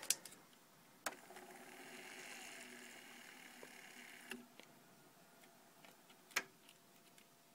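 Marantz SD8020 cassette deck's transport keys clicking as they are pressed, four times. Between the second and third clicks the transport motors run with a faint steady whir for about three seconds, stopped by the third click.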